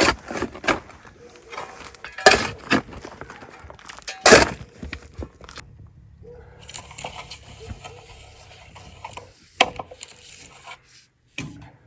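Sharp, irregular knocks and clanks of hard objects striking one another, the loudest about 4 seconds in.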